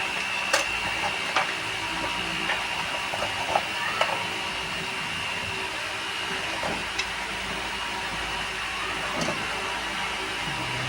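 Digital multimeter on its continuity (buzzer) setting sounding one steady high beep while its probes stay across a connected circuit-board track, with a few light clicks as the probe tips touch the board, over a steady background hiss.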